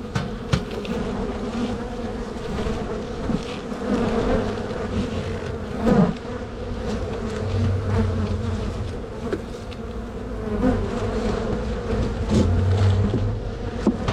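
Honeybees buzzing in a swarm around an opened hive, a steady hum throughout, with scattered clicks and knocks, the loudest about six seconds in.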